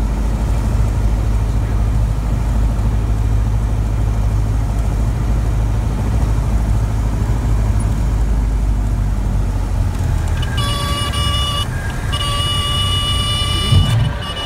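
Single-engine light plane's piston engine and propeller droning steadily on short final, dropping off about ten seconds in as power comes back. Then the stall warning horn sounds a steady high tone through the flare, breaking off briefly once, with a bump near the end as the wheels touch down on the grass strip.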